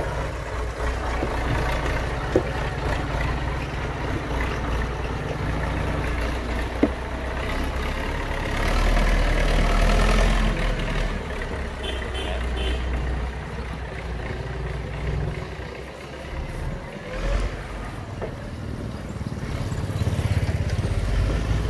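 Belarus 800-series tractor's diesel engine working hard, hauling a loaded cassava trailer up a slope and puffing black smoke, loudest about ten seconds in, then fading as the tractor pulls away.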